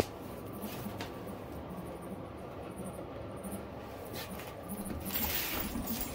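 A mink scrambling through a fabric play tunnel and scurrying out across a hardwood floor: rustling and light paw patter, louder near the end. One sharp click at the very start.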